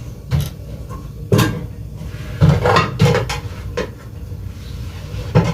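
Washed dishes being put away into kitchen cupboards: a series of knocks and clatters of crockery and cupboard doors, about seven in all, the loudest a few seconds in.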